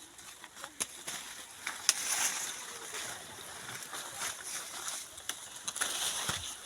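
Dry maize leaves and stalks rustling and crackling, with scattered sharp snaps, as someone works or moves through standing maize during hand harvesting.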